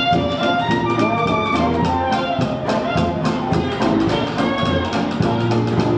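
Traditional New Orleans jazz band playing live: tuba bass line and brass melody over a drum kit keeping a steady beat.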